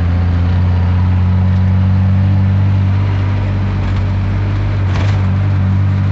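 Truck diesel engine running steadily, heard from inside the cab on the move, with a short knock about five seconds in.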